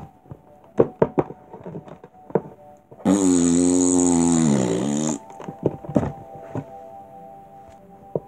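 Plush toys handled and knocked about on a floor, with scattered soft knocks, then a loud sound about two seconds long that dips in pitch and rises again. Faint music plays underneath.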